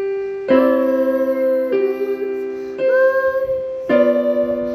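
Piano playing a slow melody, one note or chord struck about once a second and held until the next.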